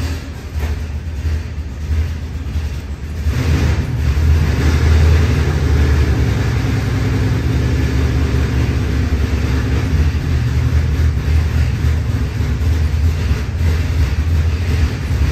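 Freshly built LS V8 running on an engine dyno at a fast idle of about 1,400 rpm, a steady low, deep engine note that gets louder about three and a half seconds in.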